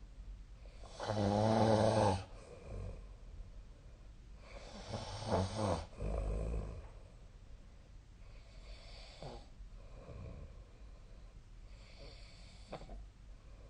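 A sleeping person snoring: two loud snores, about a second in and about five seconds in, each lasting a second or so, then quieter breaths.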